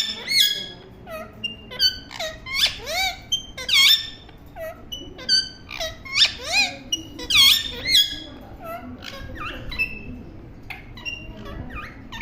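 Parrot calling with rapid, repeated short squawks and chirps, some sweeping sharply up or down in pitch; the calls are loud and dense for about eight seconds, then fainter and more scattered.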